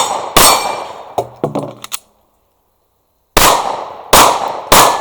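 Pistol shots on a range: one shot just after the start, a few lighter knocks a second or so later, then a pause and three quick shots near the end, each with a short ringing tail.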